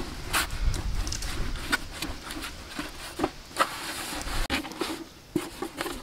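Hands rolling and pressing soft dough on a metal plate: irregular taps and slaps, with a low wavering hum underneath.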